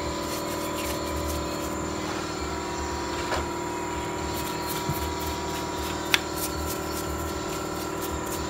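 Steady mechanical hum with several held tones, under a paintbrush scrubbing solvent over the oily housing of a disassembled rotary engine; two sharp clicks, about three and six seconds in.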